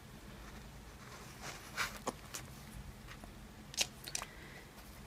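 A small plastic bottle of pink food colouring being handled and squeezed out onto a paper page: a few short rustles and clicks, the sharpest near the end.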